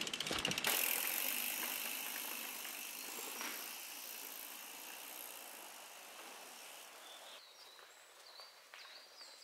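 Bicycle tyres rolling over a dirt woodland track, a steady hiss that fades away over several seconds. Near the end it is much quieter, with a few faint bird chirps.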